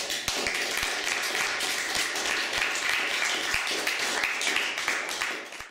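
Audience applause: a roomful of people clapping steadily, thinning slightly just before it cuts off abruptly near the end.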